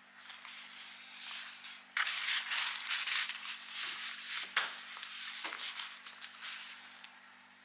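Packaging being handled: plastic and cardboard rustling and rubbing, suddenly louder about two seconds in, with a sharp click near the middle, then fading out near the end.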